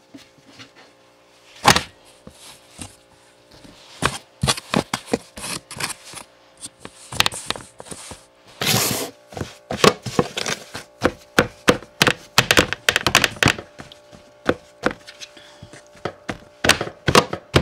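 Hands pressing and patting pizza dough out across a baking pan on the counter: a run of irregular thumps and knocks with brief scuffs, over a faint steady hum.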